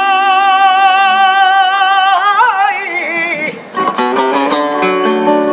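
Male flamenco singer singing a fandango, holding one long high note with a wavering vibrato and a brief ornamental turn, breaking off about three and a half seconds in. A flamenco guitar then plays a run of plucked notes.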